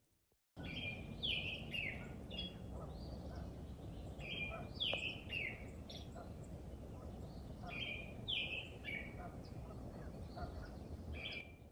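A songbird singing: a short phrase of three or four quick downward-slurred notes, repeated about every three and a half seconds, over steady low background noise.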